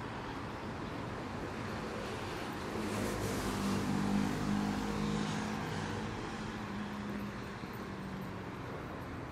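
A car passes close by on a city street. Its engine hum and tyre hiss rise about three seconds in and fade by about six seconds, over steady traffic noise.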